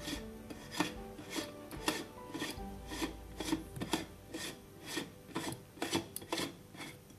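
Grundfos SQF helical pump stator being twisted by hand into its stainless-steel sleeve, giving short rasping scrapes about twice a second.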